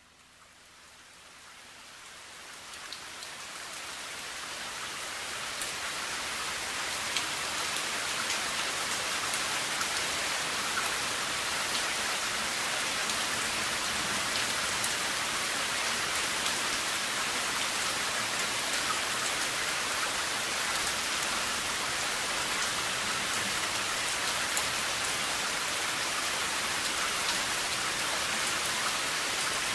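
Steady rain. It fades in over the first several seconds and then holds level, with single drops ticking here and there.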